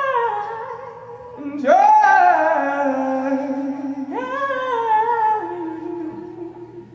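A woman singing unaccompanied, long held notes that bend and waver, with a new phrase starting about a second and a half in and another about four seconds in, over a faint steady low hum.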